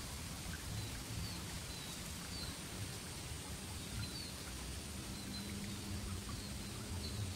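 Outdoor ambience: a steady hiss and low rumble with faint, short high chirps of small birds, scattered about once a second.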